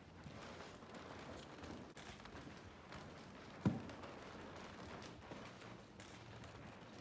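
Faint room noise with scattered soft taps, and one short, low thud a little past halfway.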